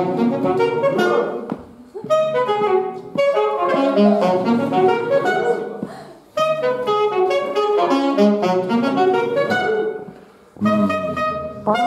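Solo saxophone playing phrases of quick-changing notes, broken by short pauses between phrases.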